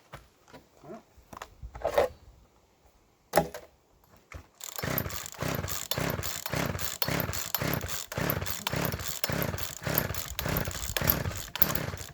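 Poulan two-stroke chainsaw on full choke being started: a few clicks and two sharp knocks, then about five seconds in the engine catches and runs roughly, surging two or three times a second, the way a flooded or choked saw fires before it dies.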